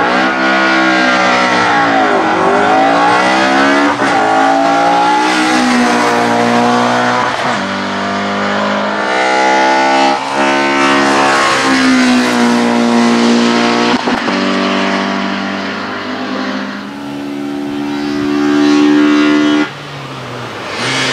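An Opel Kadett C hillclimb race car's engine at full throttle, loud and revving hard. Its pitch climbs and falls back again and again as the car drives up the course.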